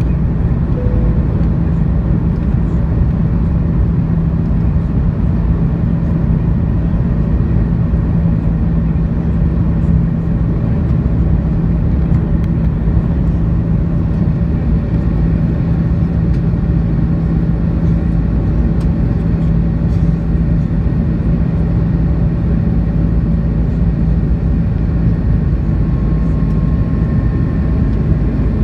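Cabin noise of an Airbus A330-300 climbing after takeoff, heard from a window seat over the wing: the steady drone of its engines at climb power and the rush of air past the fuselage, with a strong low hum. Near the end the low hum fades and a higher tone comes in.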